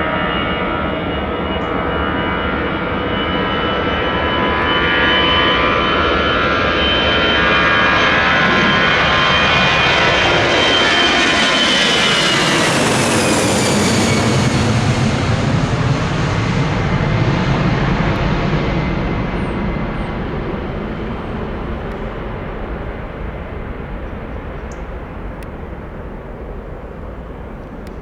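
Airbus A319 jet engines at takeoff power passing by. The high whining tones drop sharply in pitch about halfway through as the aircraft goes past. A low rumble follows and slowly fades away.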